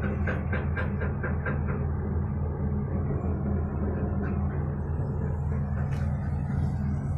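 Kobelco hydraulic excavator's diesel engine running at a steady speed, heard from inside its cab. A quick run of sharp ticks, about five a second, sounds over it in the first two seconds.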